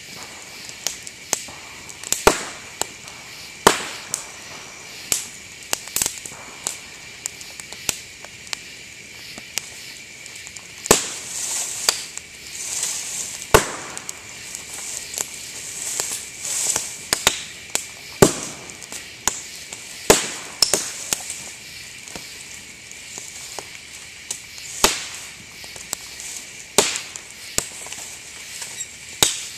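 Bamboo canes bursting in a campfire: sharp pops at irregular intervals, one or two a second, some much louder than others, over the fire's steady crackle.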